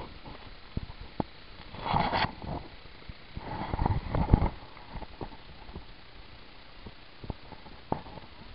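Footsteps on gravelly dirt with clothing and gear rustling, a few sharp clicks and knocks, and a louder rustle about 2 seconds in and again around 4 seconds.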